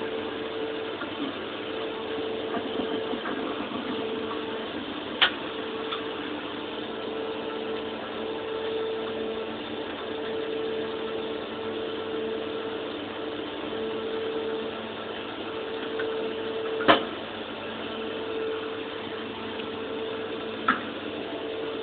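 Brother HS50A wire EDM machine running: a steady mechanical hum with a mid-pitched tone that cuts in and out every second or so. Three sharp clicks break through, the loudest about three-quarters of the way in.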